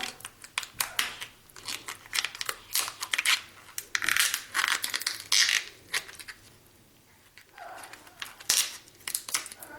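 Lobster shell being cut open along the belly: an irregular run of crunching cracks and snips, with a quieter pause about two-thirds of the way through.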